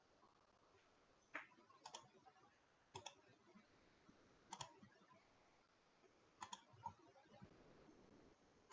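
Faint computer mouse clicks, about six single clicks spaced unevenly.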